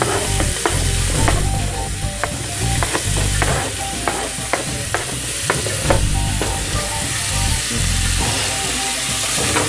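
Diced ají amarillo and onion sizzling in hot oil in a metal pot, with many short taps and scrapes as the pieces are pushed off a plastic cutting board into the pot and stirred with a wooden spoon.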